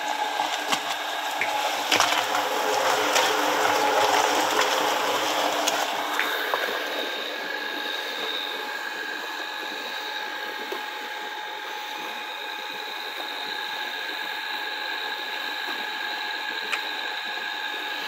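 Homemade barrel concrete mixer running empty: a 1.1 kW electric motor driving the drum through a 1:62 reduction gearbox, a steady whine with mechanical clatter. The clatter is louder and noisier, with scattered clicks, for about the first six seconds, then settles to an even hum.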